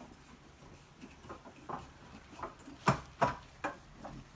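Short clicks and knocks of the bed base's short metal legs against its steel frame as they are screwed in by hand, light taps at first and the loudest knocks close together about three seconds in.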